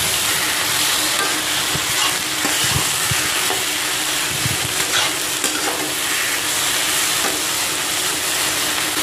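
Spiced potato and pea filling frying in oil in a metal kadai, sizzling steadily while a steel spatula stirs and scrapes through it.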